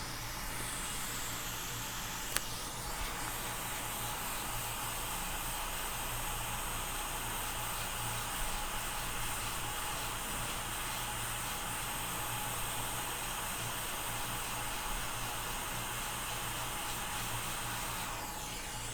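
Hot-air rework station blowing a steady hiss onto an iPhone SE 2020 logic board to desolder the NAND flash chip, with one sharp click a couple of seconds in. The airflow fades out near the end as the chip comes free.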